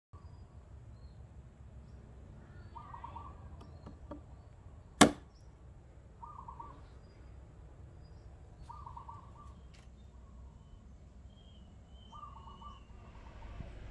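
A single sharp chop about five seconds in: a hatchet with a Hults Bruk head is struck into a wooden stump. Around it, a bird gives short calls of rapidly repeated notes four times, over steady outdoor background noise.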